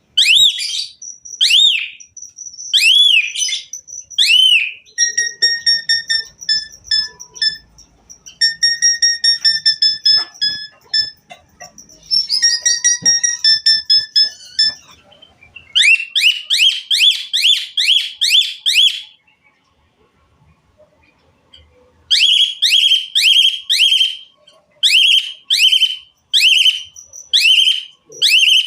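Asian pied starling (jalak suren) singing a loud, varied song full of imitations: arching whistles, rapid runs of clear piping notes and fast trains of repeated sweeping notes, with a short pause about two-thirds of the way through.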